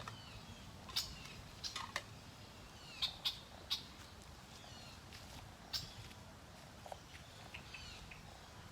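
Sharp, high animal chirps with short falling whistles, a few at a time, clustered about a second in and again around three seconds in, with another near six seconds.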